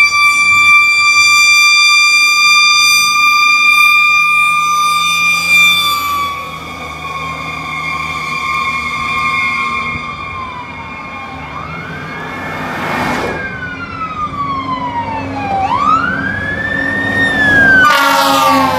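Fire truck's mechanical Federal Q siren held peaked at its top pitch, a steady high whine for about six seconds. It then winds down and back up in long swoops as the rescue truck approaches. Loud short blasts from the truck's air horn cut in around the middle and again near the end as it passes.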